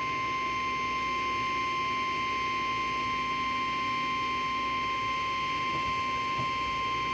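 The Emergency Alert System's single-tone attention signal, the National Weather Service's 1050 Hz warning alarm: one steady, unbroken beep over faint radio hiss. It marks the start of an alert, here a severe thunderstorm warning.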